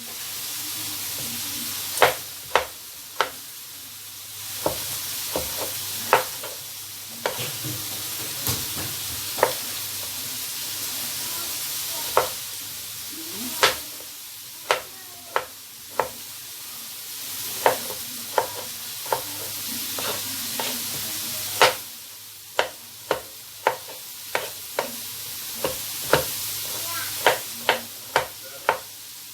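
Knife cutting vegetables against a cutting board in sharp, irregular taps, over a steady sizzle of meat frying.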